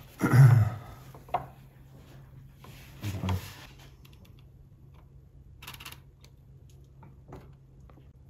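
Fossil bones and probing tools handled on a table: a few light knocks and scrapes, the loudest about half a second in, over a faint steady low hum.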